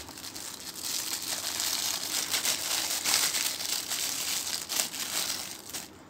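Thin clear plastic bag crinkling as it is opened and pulled off a small amplifier circuit board, a dense crackle that stops just before the end.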